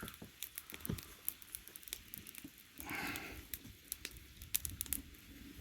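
Faint scattered crackles and clicks, with a short scrape about three seconds in, as softened plastic is scraped and worked over the hole in the plastic water tank.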